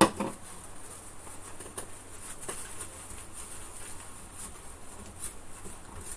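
A cloth rubbing over a calculator's circuit board. There is faint scuffing with a few light clicks, after a sharp knock right at the start.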